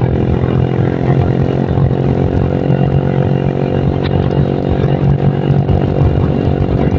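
Motorcycle engine running at a steady speed while riding, its pitch holding even throughout, with wind rumbling on the microphone.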